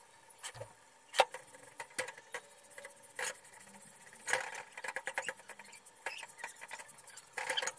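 Irregular clicks and taps as a roti is pressed and shifted with a folded cloth on a hot iron tawa. There is one sharp click about a second in, and the ticks grow denser in the second half.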